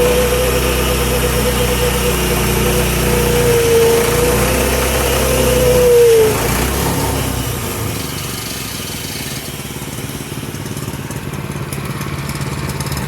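Portable band sawmill running under load, its gas engine running with a steady whine as the blade cuts through a red maple log. About six seconds in, the whine drops away and the engine keeps running more quietly.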